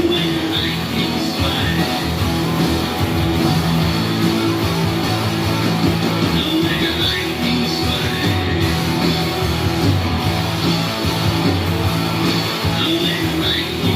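Rock music with guitar, playing steadily at full level.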